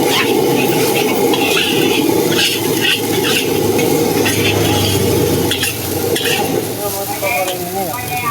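Fried rice sizzling loudly in a hot pan while a metal spatula stirs and tosses it, with repeated sharp clinks and scrapes of the spatula on the pan. About seven seconds in the sizzle eases and a brief wavering pitched sound comes in.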